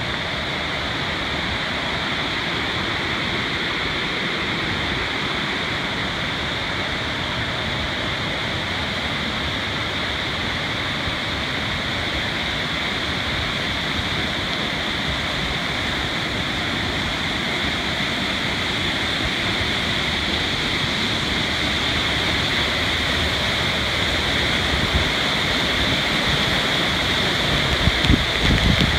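Wahkeena Falls, a tall waterfall, pouring into its pool: a steady rush of falling water that grows a little louder near the end, with a few low bumps in the last seconds.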